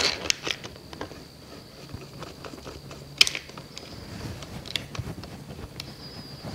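Hands fitting plastic cover parts over the carburetor of an Echo PAS 260 trimmer engine: a few sharp plastic clicks and knocks amid light handling rattle, the loudest about three seconds in.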